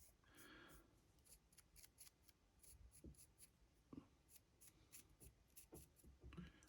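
Faint, quick scratches and taps of a paintbrush working grey paint onto the stone areas of a primed 3D-printed model, an irregular run of short strokes.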